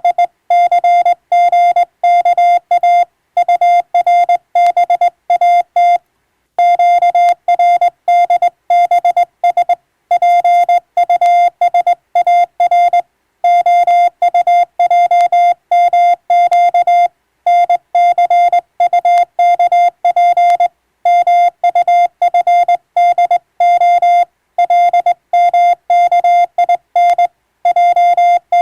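Morse code (CW) tone, a single steady beep keyed rapidly on and off in dots and dashes, with short silent gaps between words.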